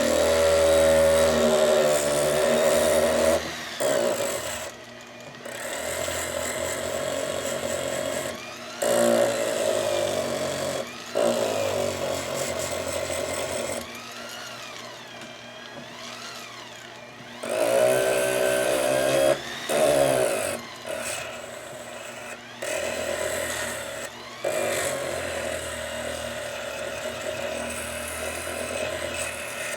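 A foot-pedal-controlled rotary tool runs a rubber-bonded abrasive against the pliers' plated steel handle, stripping loose plating. Its whine rises and falls in pitch as the pedal changes speed, and it stops and restarts several times.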